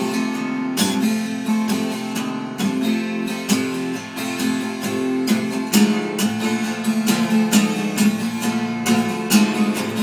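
Acoustic guitar strumming chords in a steady rhythm, with no singing.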